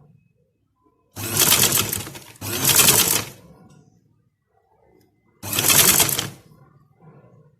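Sewing machine stitching in short runs of about a second each: two runs back to back, then a third about two seconds later, starting and stopping abruptly.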